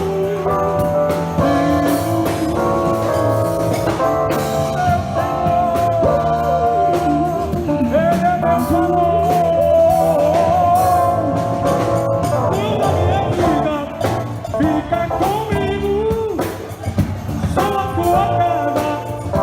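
Live band playing a gospel worship ballad: a sustained, wavering melody line with slow pitch glides over steady keyboard and drum accompaniment.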